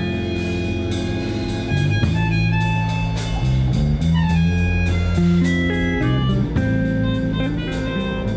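Band music: guitar over a drum kit keeping a steady beat.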